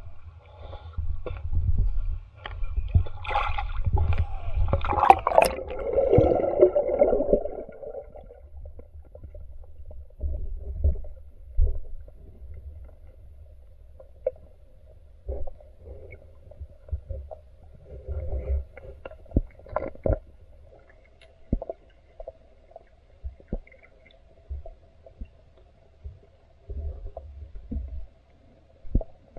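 Water splashing and churning as the swimmer goes under the surface, then the muffled sound of a river heard underwater: a low rumble with scattered clicks and knocks.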